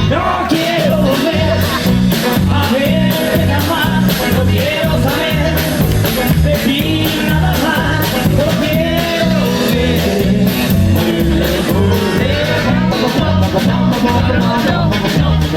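Rockabilly band playing live, with a bass line stepping from note to note under a steady drum beat and a melody line over the top.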